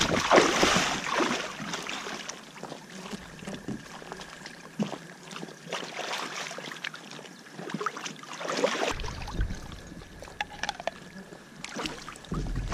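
Shallow lake water sloshing and splashing in uneven bursts around rubber boots as a person wades at the shore edge beside a canoe.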